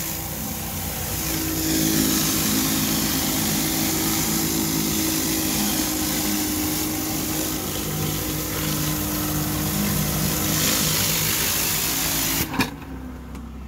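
4,000 PSI hot-water pressure washer running, its engine hum under the steady hiss of a rotary surface cleaner spraying hot water onto concrete. The spray noise drops away suddenly near the end.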